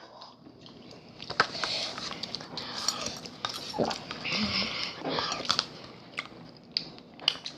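Slurping ramen broth and chewing noodles, with several short clicks scattered through.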